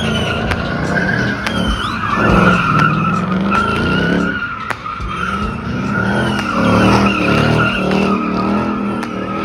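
A car spinning donuts: its tires squeal in one steady high tone while the engine revs underneath.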